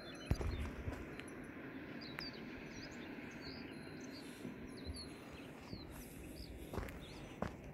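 Sparse, short high-pitched bird chirps over a steady outdoor background rush, with a thump about a third of a second in and a few knocks near the end.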